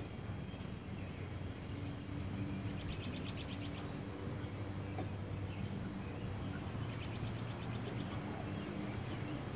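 Outdoor ambience: a bird gives two short, rapid, high-pitched trills about four seconds apart, over a steady low hum.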